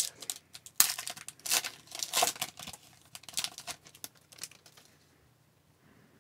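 A foil hockey card pack wrapper being torn open and crinkled in the hands: a quick run of sharp crackles that stops about five seconds in.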